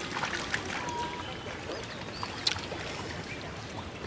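Water splashing and trickling, with a few short high chirps from small birds.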